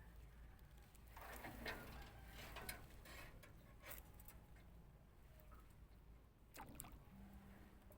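Near silence, with a few faint scattered clicks and rustles.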